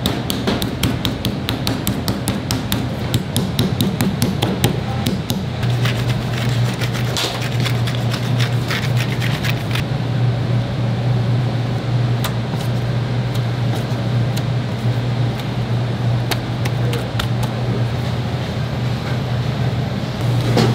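Kitchen prep: rapid sharp taps of a utensil on a hard surface, about five a second for the first five seconds, then only scattered taps, over a steady low hum that grows louder about six seconds in.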